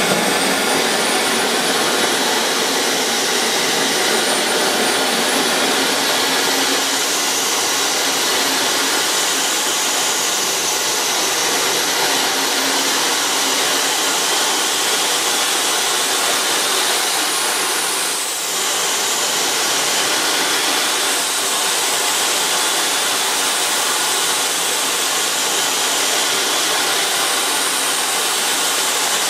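Homemade turbojet built from a Volvo TD04HL-13G turbocharger running steadily: a loud, even rush with a high whine that drifts slowly in pitch. The sound dips briefly about two-thirds of the way through, then settles again.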